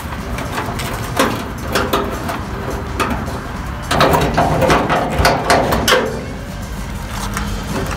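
Sheet-metal clanks, taps and scraping from the rusty front panel and base of a vintage kerosene heater being worked back into place, with a screwdriver at the base. The knocking comes as scattered sharp clicks and becomes busier and louder for about two seconds in the middle.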